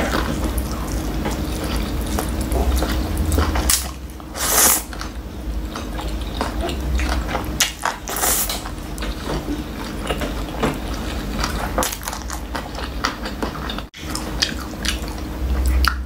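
Close-miked eating of spicy black bean instant noodles (jjajangmyeon): steady wet chewing and smacking of the mouth, broken by a few short, louder slurps as noodles are sucked in, the clearest about four and eight seconds in.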